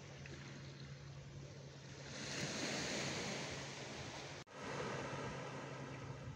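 Small waves washing onto a sandy, rocky shore, with wind on the microphone, swelling louder about two seconds in. A steady low hum runs underneath, and the sound drops out for an instant past the middle at an edit cut.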